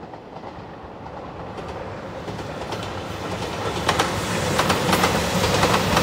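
JR Shikoku 2700 series diesel express train approaching and passing close, growing steadily louder. Its wheels click over the rail joints, faint at first and coming thicker and louder over the last couple of seconds.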